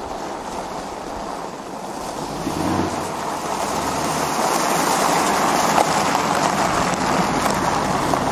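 Loud rushing wind noise buffeting the microphone, swelling over the first few seconds and then holding steady, with no clear engine tone.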